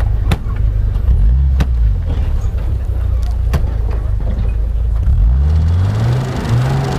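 UAZ-315195 Hunter's engine running under load off-road, its revs climbing in steps about five seconds in. A few sharp knocks come in the first four seconds.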